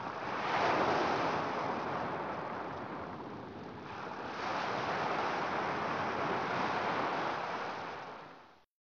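Ocean surf: waves washing in, swelling twice. The sound cuts off suddenly near the end.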